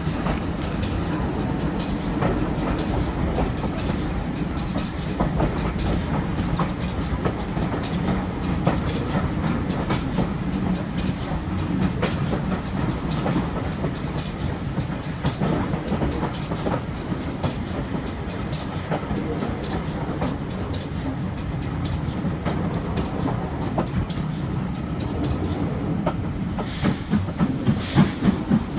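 Steam train heard from a carriage window: a steady rumble of the carriages with the clickety-clack of wheels over rail joints. Near the end the Stanier Black 5 4-6-0 locomotive's exhaust beats come in, hissing chuffs about two a second.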